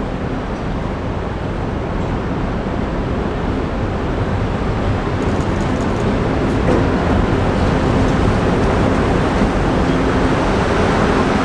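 Chicago 'L' rapid transit train arriving at an elevated platform, its wheels running on the rails in a steady rumble that grows louder as the cars draw close and pass.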